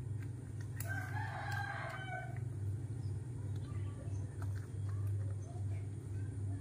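One drawn-out call in the background, about a second and a half long, starting about a second in, over a steady low hum.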